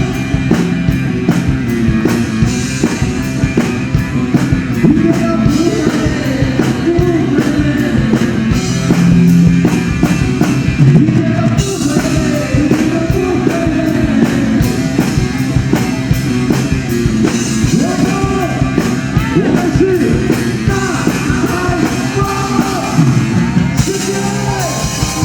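A live rock band playing a song with a singer over guitar and a drum kit, with a steady beat.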